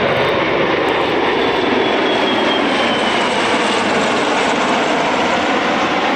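Bell Boeing V-22 Osprey tiltrotor in flight: the loud, steady rush of its twin turboshaft engines and proprotors. A faint high whine slides slowly down in pitch a couple of seconds in.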